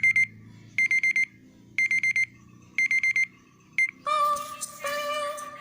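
LG Magna smartphone playing a beeping alarm tone through its speaker: groups of four quick high beeps about once a second. About four seconds in the beeping cuts off and a different melodic tone starts.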